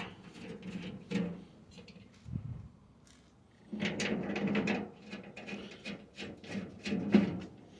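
Hand work on a tailgate handle assembly: parts rubbing and scraping against each other, with scattered clicks and knocks. There is a longer scraping stretch around the middle and a sharp knock near the end.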